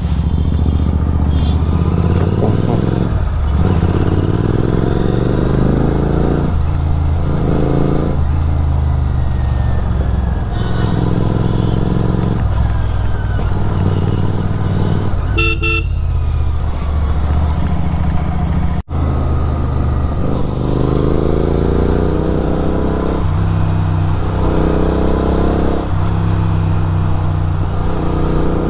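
Kawasaki Z900 inline-four running through an SC Project aftermarket exhaust while riding, its revs repeatedly climbing and falling through the gears. A horn sounds briefly near the middle.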